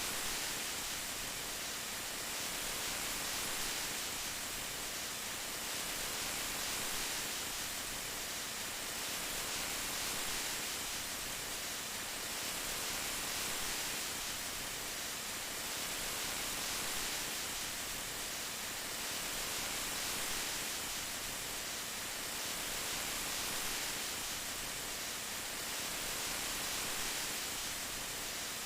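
Steady rain: an even hiss with no separate drops or thunder, swelling and easing gently every few seconds.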